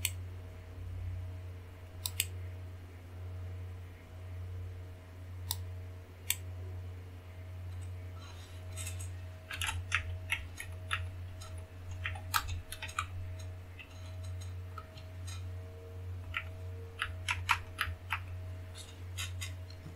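Keystrokes on a computer keyboard and mouse clicks, in scattered bursts of quick taps, as a volume name is typed in. Under them runs a steady low hum.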